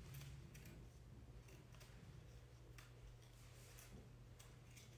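Faint, irregular small clicks and ticks of fingers working the trackpad flex cable and its small plastic connector latch inside an opened 12-inch MacBook.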